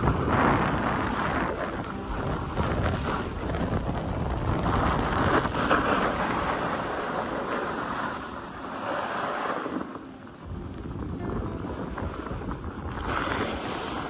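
Snowboard sliding down a snowy trail, its base and edges hissing and scraping through the snow in swells as it turns, with wind rushing over the microphone.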